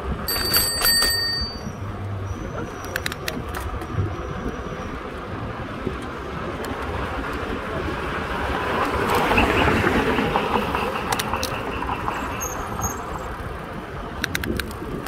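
Wind and road rumble from riding along a city street, with scattered rattling clicks. The noise swells and brightens for a couple of seconds around the middle.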